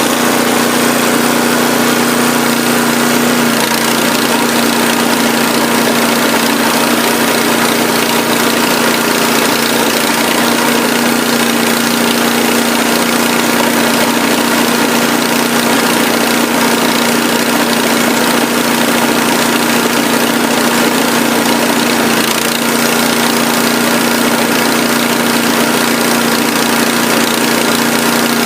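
Remote-controlled lawn mower's engine running at a steady speed.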